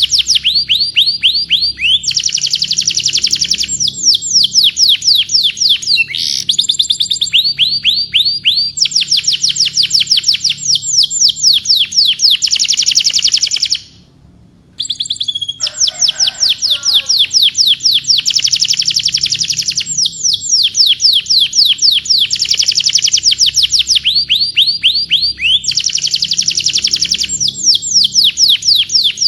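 Domestic canary singing in long runs of rapid trills, each a fast series of falling notes, with the phrases changing pitch and speed every second or two. The song breaks off for about a second near the middle, then resumes.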